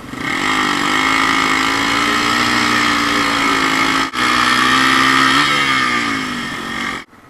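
Yamaha TW200 dual-sport motorcycle's single-cylinder engine running hard on the throttle: the pitch climbs at the start, holds steady, and drops away near the end. There is a brief break about four seconds in, and the sound cuts off suddenly near the end.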